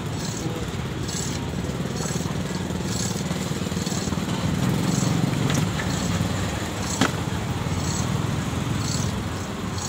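Large metal pot of soup at a rolling boil over a wood fire: a steady bubbling rumble that swells a little mid-way, with a single sharp click about seven seconds in.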